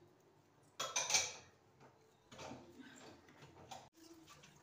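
An orange half being twisted on a plastic hand citrus juicer: ticking and rubbing of plastic with squishing fruit. The loudest burst comes about a second in, followed by softer scraping strokes.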